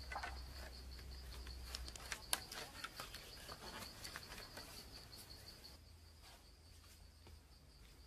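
Small clicks and rustles of bamboo poles and cord being handled as the poles are lashed together, busiest over the first five seconds, over a steady high insect trill.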